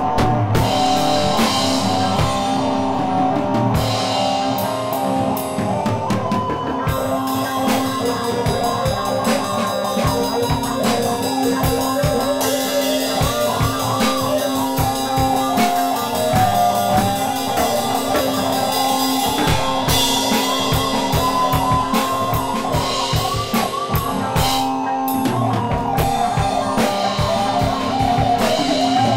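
Rock music with a driving drum kit beat under a wavering melodic line.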